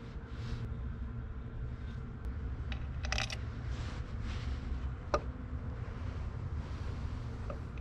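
Small metallic clinks and taps as bolts and a new water pump are handled and fitted against the mini excavator's engine: a quick cluster of clinks about three seconds in and a single sharp click about five seconds in, over a steady low rumble.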